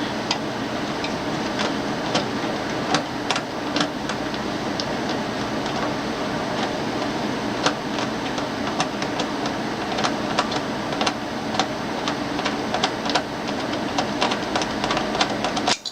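Irregular light clicks and rattles of metal parts and fasteners being worked loose by hand while a water cooler is taken apart, over a steady background hum.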